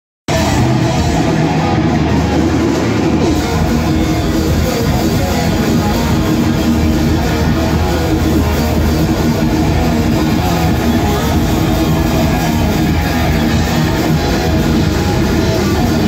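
Thrash metal band playing live at full volume: distorted electric guitars driven by a drum kit, cutting in suddenly just after the start and running on without a break.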